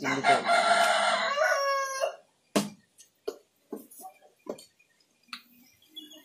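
A rooster crowing once, one long call of about two seconds, followed by a few light, separate knocks.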